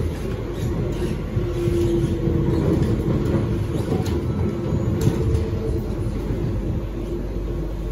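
Inside an SMRT C151B metro train car: a steady rumble of the wheels on the rails, with the whine of the traction motors shifting in pitch and a few sharp clicks, as the train slows into a station.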